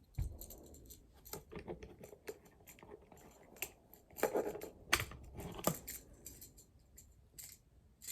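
Plastic clicks and light rattles from a Transformers Siege Ratchet action figure being handled as its accessory pieces are pulled off and refitted, with a few louder clicks about four to six seconds in.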